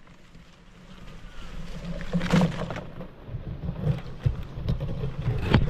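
Low rumble of wind buffeting the microphone, growing from about a second in, with brief rustling knocks about two and a half seconds in and again near the end.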